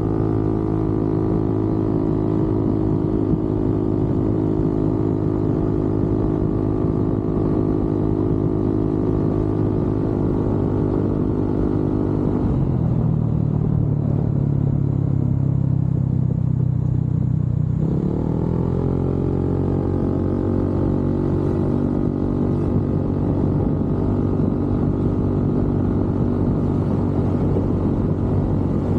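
Motorcycle engine running at a steady cruising speed. About halfway through, the engine note drops low for several seconds, then rises again as the bike picks up speed and settles back into a steady drone.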